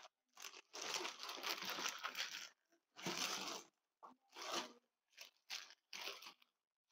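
Clear plastic bag crinkling and rustling in a series of bursts as beer cans are worked out of a tight foam can holder inside it, with one long stretch about a second in and shorter ones toward the end.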